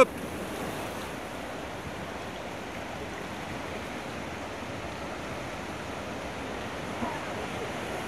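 Steady rush of a whitewater river around an inflatable raft drifting toward a rapid.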